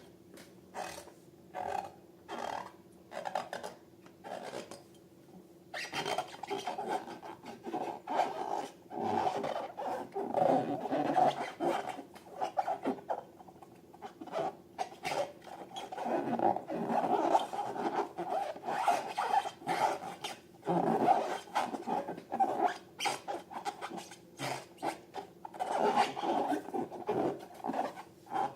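Slime and slime-filled balloons being worked by hand: a fast, irregular run of squishing, rubbing strokes, sparse for the first few seconds and then nearly continuous.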